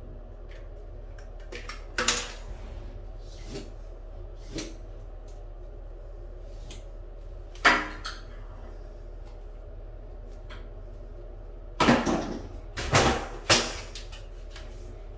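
Scattered sharp knocks and clicks as tools and small items are handled and set down on a tiled floor: one about 2 seconds in, another near 8 seconds, and a louder cluster of three or four near the end.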